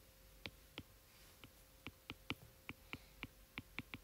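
Stylus tip tapping on a tablet's glass screen during handwriting: a quick, irregular series of light clicks, about three a second.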